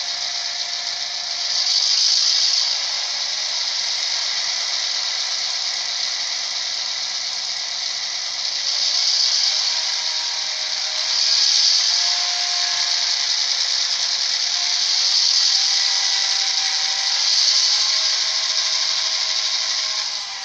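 Simulated EMD 567 diesel engine sound from an ESU sound decoder, played through the small speaker of an HO-scale Athearn SD9 model. It is thin, with no bass. A steady hiss swells louder several times, over faint engine tones that shift in pitch.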